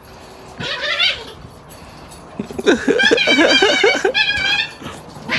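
A dog crying out during rough play: a short whimper about a second in, then a high, wavering whine lasting about two seconds over rapid low pulsing.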